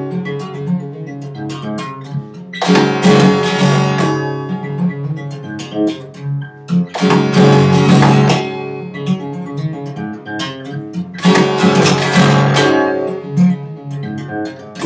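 Acoustic guitar played solo: a loud strummed chord about every four seconds, with lighter picked notes between them, and a last chord struck at the end.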